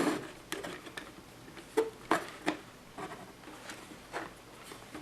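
Scattered light clicks and knocks of plastic speaker-case parts being handled and fitted back together, a few sharp taps about two seconds in being the loudest.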